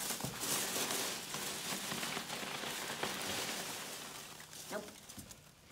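Hands digging and stirring through a tub full of polystyrene foam packing peanuts: a continuous rustle of the foam pieces rubbing and shifting, which thins out and stops near the end.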